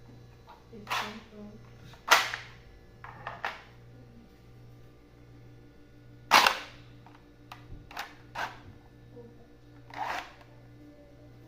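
3D-printed PETG airsoft shotgun being worked and fired: a series of about eight sharp plastic clacks and pops at irregular intervals, the loudest about two seconds in and about six and a half seconds in.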